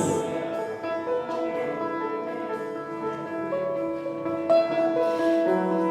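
Soft instrumental background music: sustained held notes and chords that change every second or so.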